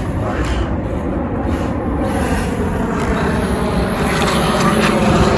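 Haiboxing 2997A RC car running: a steady electric-motor and drivetrain whine, with a continuous rumble of tyres over the ground.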